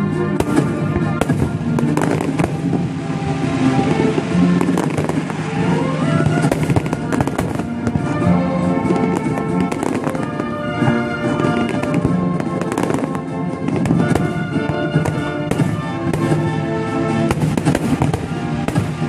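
Aerial fireworks shells bursting in quick succession, with many sharp bangs over music of held notes.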